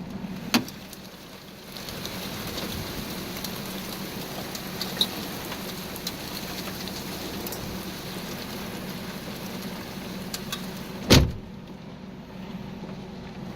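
Steady rain hissing on and around the van after the hail, over a low steady hum. Near the end comes a single loud thump, after which the rain sound drops back.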